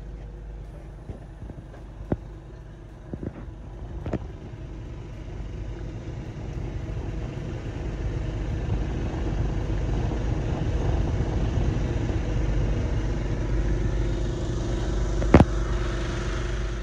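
A machine engine running with a steady low rumble that grows louder after about four seconds, with a few light knocks and one sharper clack near the end.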